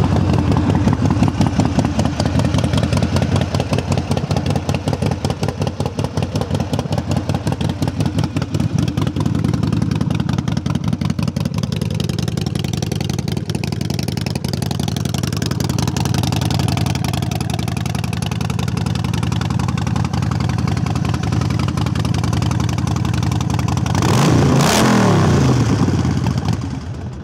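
2007 Harley-Davidson Sportster 1200 Nightster's fuel-injected 1200cc V-twin idling loud through Vance & Hines Short Shots exhaust pipes. About 24 seconds in the throttle is blipped once and the revs fall back to idle.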